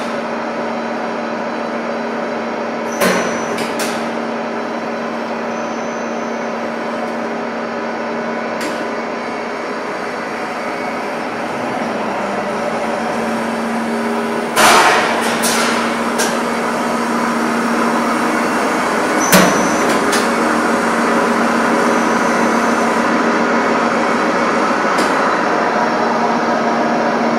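Stud-making machine running, fed with wire from a coil on a payoff reel: a steady mechanical running noise with a constant hum, broken by three sharp metallic knocks.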